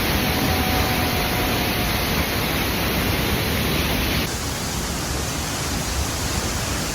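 Steady rushing noise of falling water from a waterfall, with an abrupt change in its sound about four seconds in.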